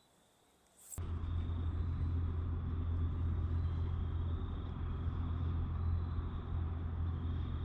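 Boat motor running steadily at low speed, a low, even hum that starts abruptly about a second in.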